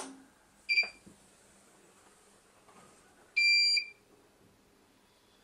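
LY 5200 mobile BGA rework station being switched on: a sharp click of the power switch, then the station's power-on beeps. There are two beeps at the same high pitch, a short one about a second in and a longer one of about half a second a little past the middle.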